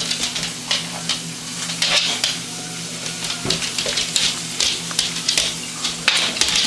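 A dog pawing and nosing at an earwig, making a run of short, irregular scratches and scrapes over a steady low hum.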